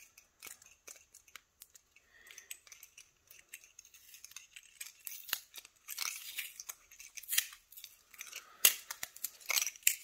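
Blue wrapping being peeled and unwrapped by hand from a padlock key: crinkling and tearing with many small sharp clicks, sparse at first and busier from about halfway through.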